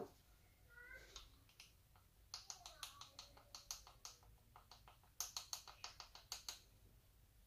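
Faint, quick light clicks of a glass spice jar of ground coriander being tapped against a measuring spoon to shake the spice out. There are two runs of several clicks a second, the first about two seconds in and the second about five seconds in.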